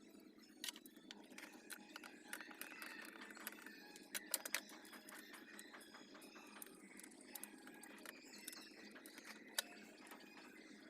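Faint, scattered sharp clicks and light taps, a few louder ones about a second in, twice near the middle and once near the end, over a low steady hum.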